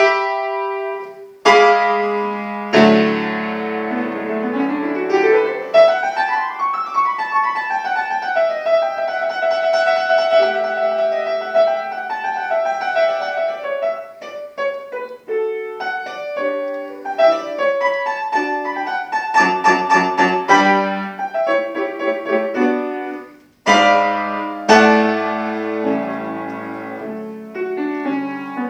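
Solo piano playing a classical piece, with a fast rising run of notes a few seconds in and two short breaks between phrases.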